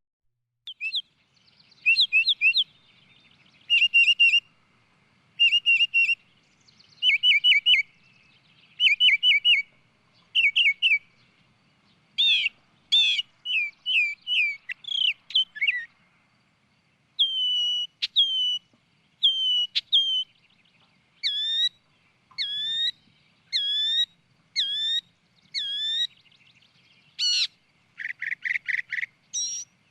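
Bird song: short, clear whistled phrases repeated one every second or two, the phrase changing several times, with a quick rapid trill near the end.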